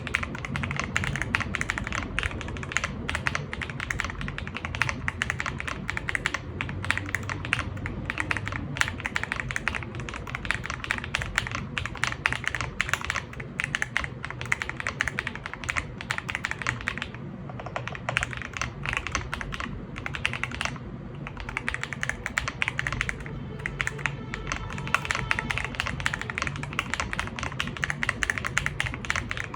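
Fast, continuous typing on an Ajazz AK870 hot-swap mechanical keyboard fitted with Feker Matcha switches: a dense stream of keystroke clacks, with a couple of short pauses past the middle.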